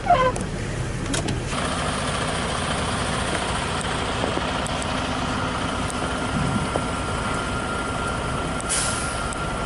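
Heavy truck engine running steadily, with a brief air hiss near the end.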